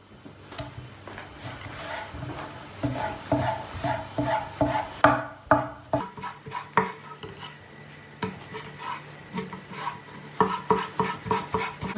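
Kitchen knife cutting raw beef on an end-grain wooden cutting board: irregular knocks of the blade against the wood mixed with scraping strokes, coming quicker near the end.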